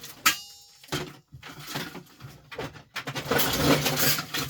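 Handling clatter of salvaged appliance circuit boards and plastic parts being picked up and moved: a sharp click with a short ring near the start, a knock about a second in, then a longer rummaging clatter and rustle over the last second and a half.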